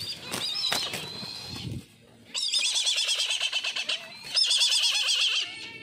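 Brahminy kite calling: two long, high-pitched, wavering trilled calls, the first about two and a half seconds in and the second just after it. Before them come a shorter high call and a few sharp knocks.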